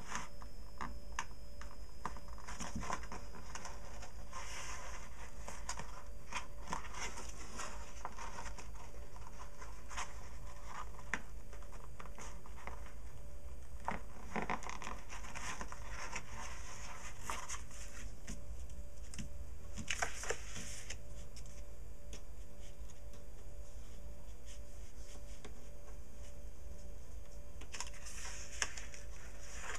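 Hands handling cardstock scrapbook pages and twine on a cutting mat: scattered paper rustles, scrapes and light taps, with a louder scrape about twenty seconds in. A low steady hum runs underneath.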